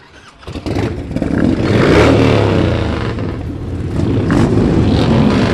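Several Harley-Davidson motorcycles' V-twin engines revving together. The sound starts about half a second in, and the engine note rises and falls as the riders blip their throttles.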